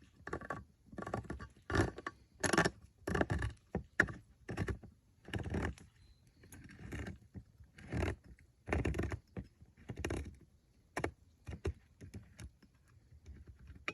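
Manual can opener being cranked around a can of baked beans, its cutting wheel grinding through the tin in uneven strokes. It goes about one to two turns a second, pauses briefly about six seconds in, and ends in lighter clicks.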